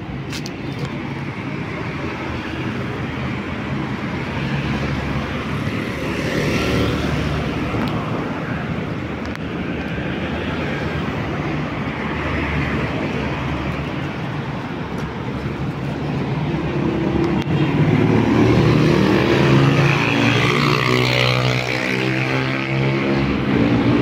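Road traffic passing close by: a steady wash of car and motorbike engines and tyre noise. It grows louder in the last third as a nearby engine draws close.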